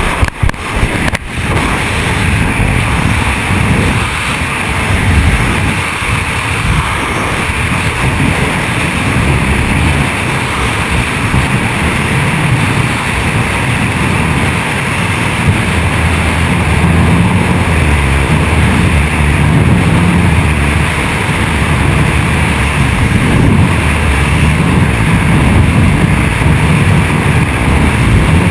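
Loud, steady rush of freefall wind blasting over a GoPro's microphone, with a churning low rumble. A few sharp knocks on the camera come in the first second or so.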